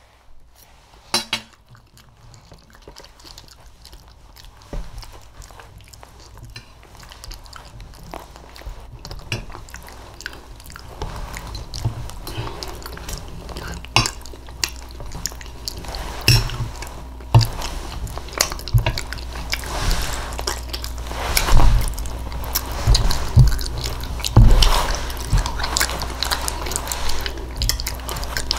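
Close-miked chewing of quiche, with a metal fork clicking and scraping against a glass baking dish. Quiet for the first several seconds, then the clicks and chewing get louder and busier from about ten seconds in.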